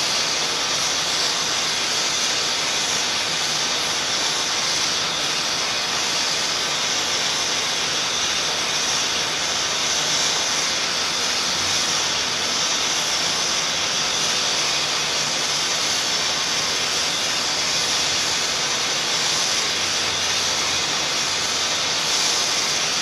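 Steady, even hiss of white noise, brighter in the upper range, holding unchanged throughout with no distinct events.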